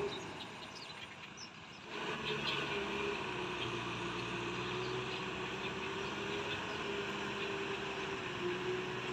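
Kubota M6040SU tractor's diesel engine running steadily under load while it drives a rotary tiller through flooded mud, a constant drone with a slightly wavering hum. The sound drops quieter for the first two seconds, then comes back fuller abruptly.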